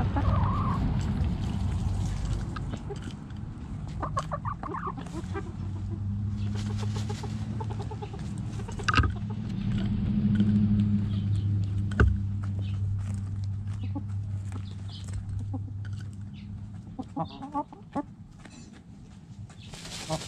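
Backyard chickens clucking in short soft bursts as they scratch in loose dirt, with a few sharp taps of scratching and pecking. A steady low hum runs underneath and fades out about three-quarters of the way through.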